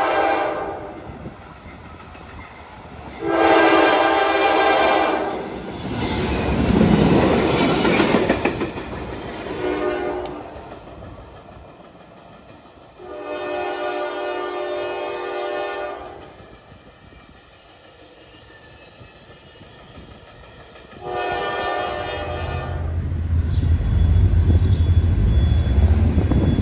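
Train horn sounding a series of chord blasts (long, long, short, long), the grade-crossing signal, then one more long blast later. Between the blasts the train passes with its wheels rumbling and clattering over the rails, loudest about 7 seconds in. A low rumble comes in near the end.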